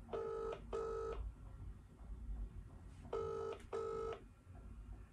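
UK-style telephone ringback tone heard through a mobile phone's loudspeaker: two double rings, each a pair of short buzzy tones, about three seconds apart. It means the outgoing call is ringing at the other end, not yet answered.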